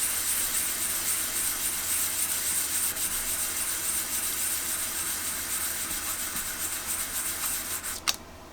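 A metal speaker badge being rubbed back and forth on wet 400-grit wet-and-dry sandpaper: a steady scratchy hiss of wet hand-sanding as the tarnish is polished off. It stops near the end with a small knock.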